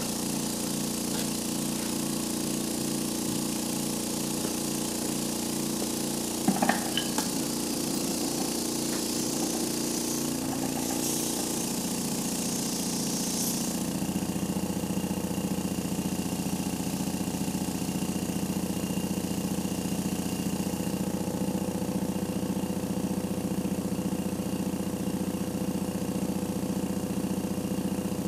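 Small electric vacuum pump running steadily with an even rhythmic chug, drawing on the fuel filter bleeder hose to prime the filter of a diesel truck. A brief clatter comes about six and a half seconds in, and about halfway through the running turns lower and fuller.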